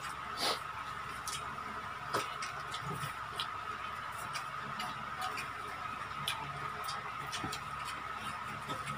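Eating sounds: scattered soft clicks and smacks of chewing and of fingers tearing crisp fried chicken, over a steady faint tone.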